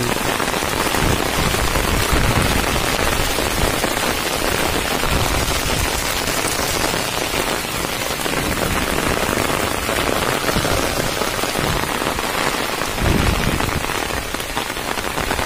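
Torrential monsoon rain pouring steadily onto a wet road and the trees around it.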